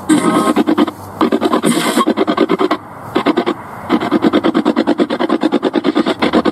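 A ghost-hunting spirit box sweeping through radio stations, played through a handheld portable speaker. It makes rapid, choppy bursts of static and broken radio sound, about eight to ten a second, with brief pauses about a second in and around three seconds in.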